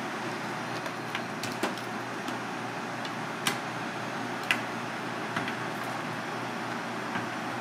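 A metal ladle clinking a few times against an aluminium saucepan as it scoops and pours broth over fish pieces, over a steady rushing background noise.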